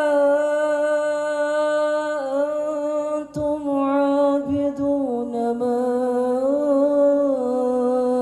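A man's voice chanting a Quranic verse in slow melodic recitation into a microphone, drawing out long held notes on a steady pitch with small ornamental turns. There is a brief break about three seconds in, and the pitch sinks slightly near the end.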